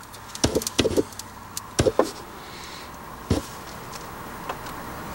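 Lip smacks and small pops of two people puffing hard on cigarillo blunts: a handful of short, uneven clicks over the first few seconds, with soft breathy exhaling.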